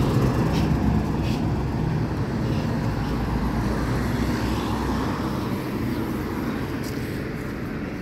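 A motor vehicle's engine running close by on a road, a steady low hum that swells and then fades away over the last few seconds as it drives off.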